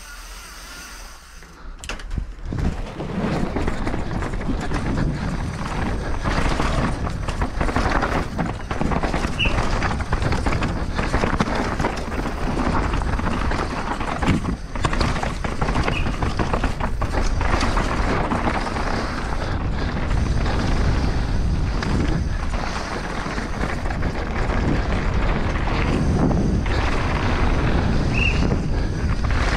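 Downhill mountain bike ridden at speed down a dirt race track: after a quieter couple of seconds on the start ramp, a continuous rumble of tyres over dirt and roots, full of knocks and rattles from the bike, with wind on the microphone.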